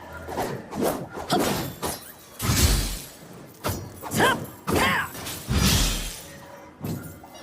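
Kusarigama sound effects: a run of sudden swishes and impacts, two of them heavy low thuds, with two short ringing tones that bend in pitch in the middle.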